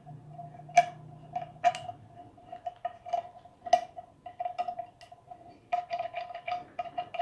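Small metal clicks and taps from a gravity-feed paint spray gun being handled as its trigger is fitted back on: scattered single clicks, then a quick run of clicks over the last second and a half, with a faint steady tone beneath.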